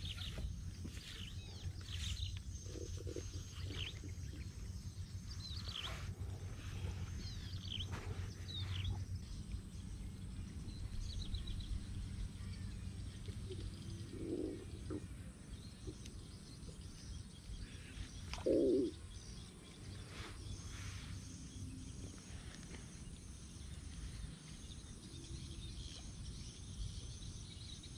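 Outdoor swamp ambience: scattered short bird chirps, most of them in the first third, over a steady low rumble. About two-thirds of the way in comes one louder, short, low-pitched call.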